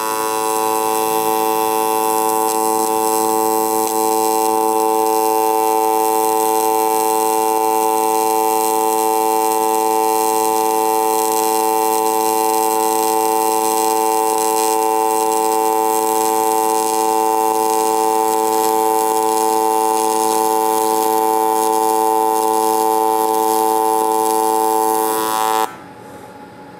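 AC TIG welding arc on aluminum plate, a steady buzz as a fillet weld is run along a lap joint. It cuts off suddenly about a second before the end as the weld is stopped.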